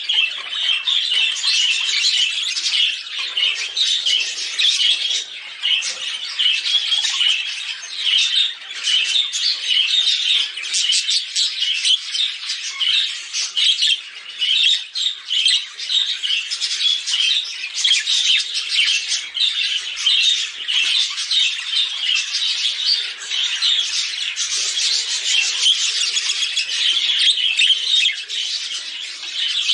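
Budgerigars chattering and warbling without a break, a dense stream of rapid chirps and squawks.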